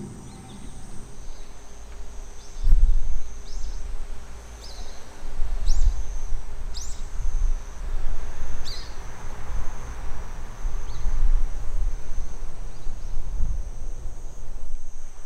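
Outdoor ambience: insects droning steadily at a high pitch, with scattered short high chirps and an irregular low rumble that is the loudest sound from about two and a half seconds in.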